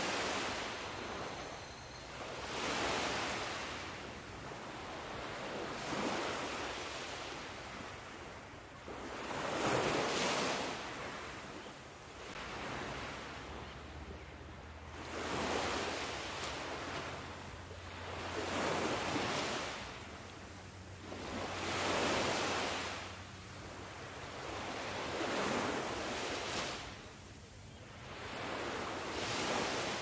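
Sea waves breaking on the shore and washing back, one swell about every three seconds.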